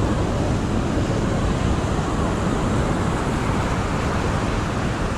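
Steady rushing outdoor noise with a heavy low rumble and no distinct events.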